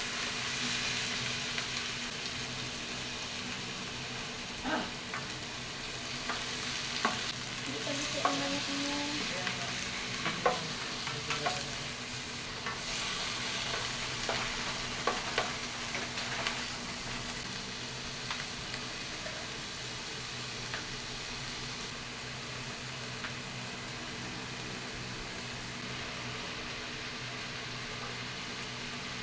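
Chopped chicken frying in hot oil with onions and garlic: a steady sizzling hiss, with scattered clinks and scrapes of stirring in the pan, mostly in the first half.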